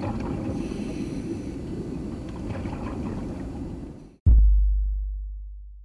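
Low underwater rumble and water noise, which cuts off about four seconds in; a single deep boom then sounds and fades slowly.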